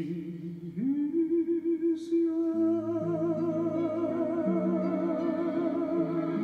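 Solo voice singing a slow ballad, sliding up into one long held note with vibrato about a second in, over sustained lower accompaniment chords.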